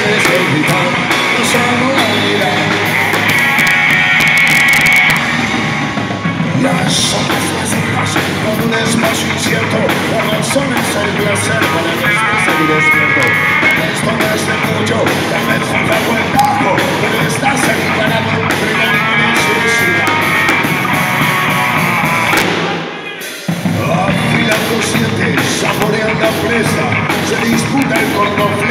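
Live rock band playing loud: drum kit and electric guitars in a dense, driving full-band sound, with a brief break about three quarters of the way through before the band comes straight back in.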